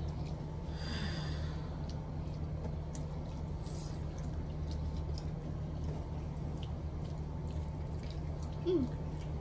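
Mukbang eating sounds: faint wet slurping and small clicks of people eating a seafood boil by hand, over a steady low hum. A short, louder sound near the end.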